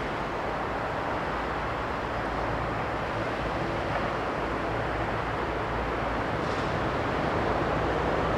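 Steady outdoor background rumble and hiss with no distinct events, growing a little louder near the end.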